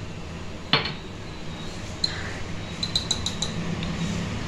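A metal spoon clinking on kitchenware while ground spices are added to a pan of curry. There is one sharp clink under a second in, then a quick run of light, ringing clinks about three seconds in, all over a steady low hum.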